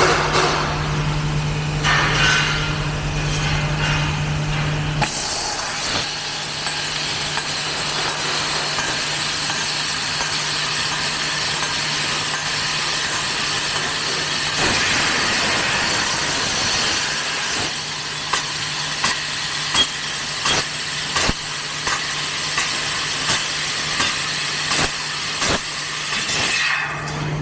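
CNC fiber laser tube cutting machine at work: a steady hiss over a low hum, with scattered sharp ticks. About five seconds in, the hum fades and the hiss gets stronger.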